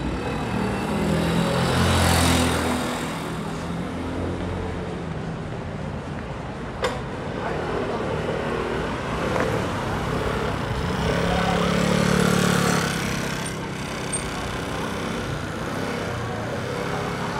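City street traffic: motor vehicles pass close by, swelling loudest about two seconds in and again about twelve seconds in, over a steady hum of road noise. A single sharp click sounds about seven seconds in.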